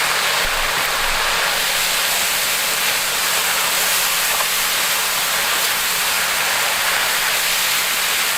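Chicken and vegetables with freshly added bok choy sizzling in a hot pan during a stir-fry: a steady, even frying hiss.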